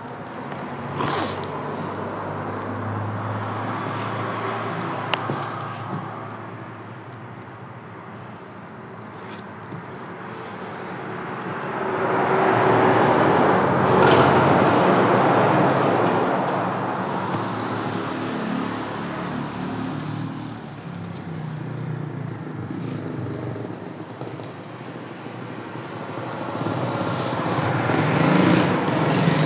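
A motor vehicle's engine passing by: it swells to a peak about halfway through and fades away, and another grows louder near the end.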